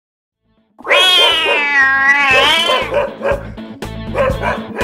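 A cat's long yowl, rising and falling in pitch for about two seconds, after a moment of silence at the start. Background music with a steady beat comes in about three seconds in.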